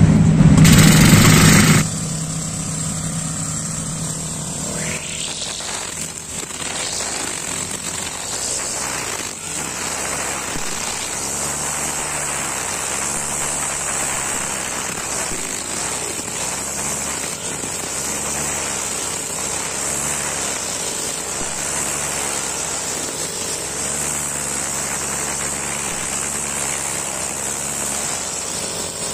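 Honda four-stroke backpack brush cutter running with a nylon-line head while cutting grass. It is loud and close for the first two seconds, then steadier and farther off. From there the engine note rises and falls in an even cycle about every two seconds.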